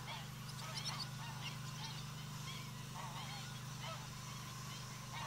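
Greylag geese honking: repeated short calls throughout, over a steady low hum.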